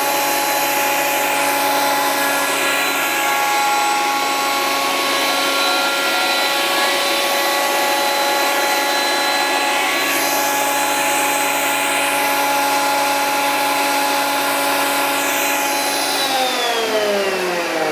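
Parkside PADM 1250 A1 jointer-thickness planer running under dust extraction with a steady high whine while the board jams and does not feed through. About sixteen seconds in, the planer is switched off and its whine falls in pitch as the cutter head spins down.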